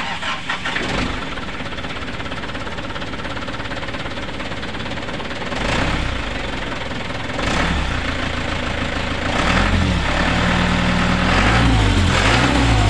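Cab-over light truck's engine running, growing louder about halfway through, then revved up and down several times near the end.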